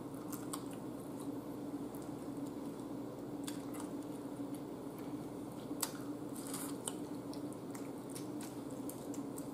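Close-up mouth sounds of a person eating chicken wings by hand: scattered wet smacks, sucks and clicks as she chews and sucks meat off the bone, over a steady low hum.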